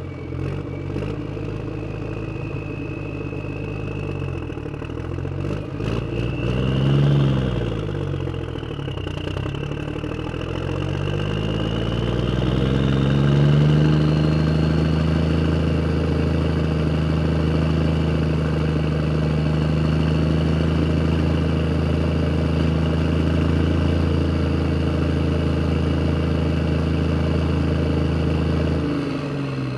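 Engine running, its pitch swinging up and down as if revved, then settling into a steady idle that cuts off suddenly near the end.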